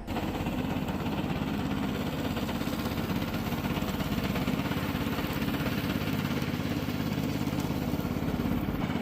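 Remote-control lawn mower's engine running at a steady speed.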